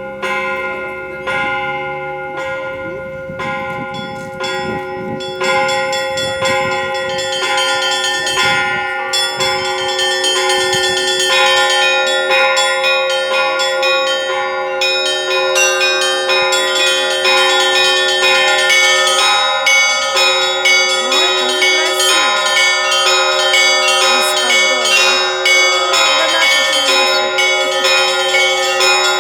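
Russian Orthodox church bell ringing (zvon): a steady ring of larger bells under a quick, rhythmic pattern of small bells. The ringing builds, growing fuller and louder over roughly the first ten seconds.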